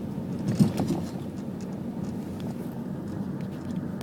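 Steady low rumble of a car in motion, road and engine noise heard from inside the cabin, with one brief thump about half a second in.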